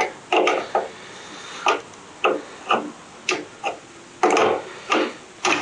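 Wrench working the chain-tensioner bolt on a mini bike: a series of about ten short metallic clicks, roughly two a second and unevenly spaced, as the bolt is tightened.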